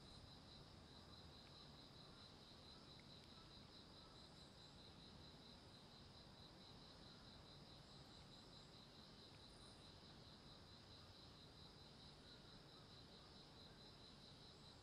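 Faint chirping of crickets: a steady, evenly pulsing high trill that keeps on without a break.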